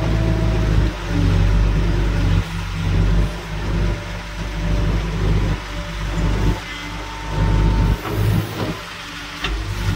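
Case 770EX backhoe loader's diesel engine, heard from inside the operator's cab, running hard and easing off in turn as the backhoe digs and swings a loaded bucket of soil.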